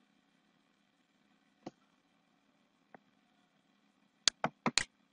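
Computer mouse clicks: one sharp click about a second and a half in, a fainter one near three seconds, then a quick run of four clicks near the end.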